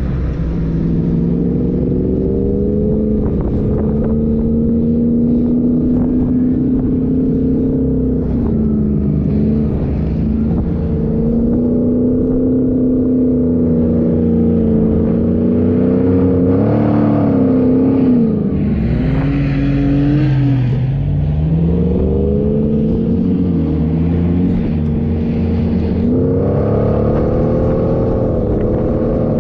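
A 4x4's engine running while driving, its revs holding steady, then falling and climbing again about two-thirds of the way through.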